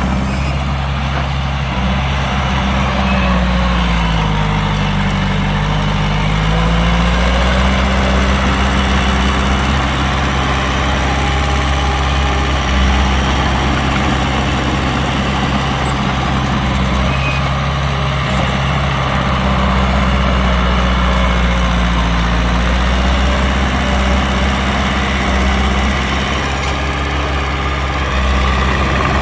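Heavy diesel engine of earthmoving machinery running steadily, its pitch sinking and rising again twice.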